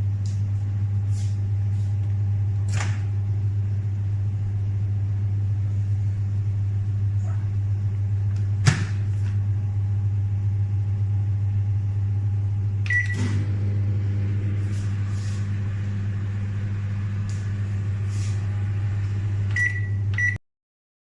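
Samsung MS23K3513AK solo microwave oven running with a steady low hum, with a few sharp clicks and a loud one about nine seconds in. Short high beeps sound about thirteen seconds in and again near the end, and then the hum cuts off suddenly.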